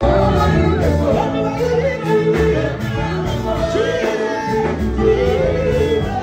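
Loud music with singing over a bass line, played at a crowded party.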